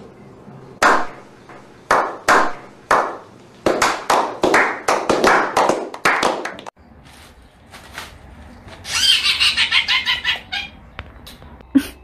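Pet budgerigar making a string of short, raspy calls, at first about one a second and then coming faster, followed a few seconds later by a quick burst of high chatter and a short sharp sneeze right at the end.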